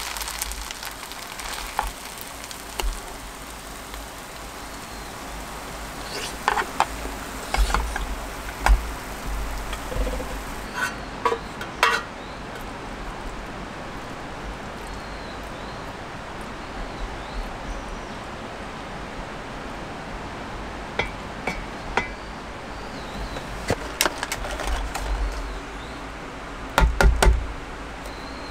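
Soft background music over a steady hiss, with scattered clinks and knocks of cooking gear, several bunched together near the end. A bright high hiss dies away about twelve seconds in.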